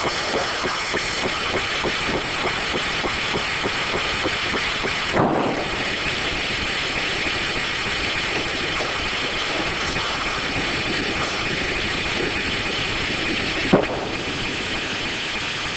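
StrojCAD D9 circular sawmill running with a steady mechanical noise, broken by a short thud about five seconds in and a sharp clack near the end, after which the noise eases slightly.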